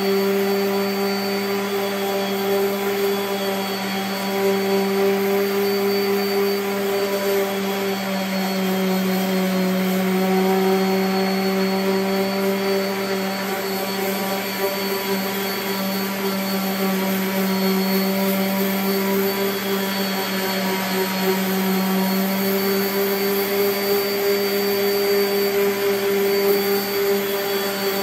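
A 5-inch DeWalt random orbital sander runs steadily against the edge of a walnut board. The motor hum wavers slightly in pitch as the sander is worked along the edge.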